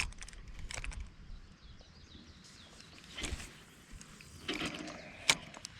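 Quiet outdoor ambience with a few short knocks and rustles from close handling, and faint bird chirps in the background.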